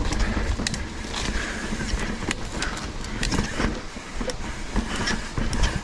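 Mountain bike rolling along a wet dirt trail: a steady low rumble with frequent sharp clicks and rattles from the bike and tyres over the ground.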